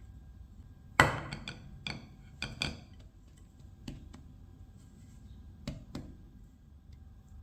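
Kitchen utensils knocking and clinking against a bowl or dish. A loud knock about a second in is followed by a quick run of ringing clinks, then three more single clinks spaced apart.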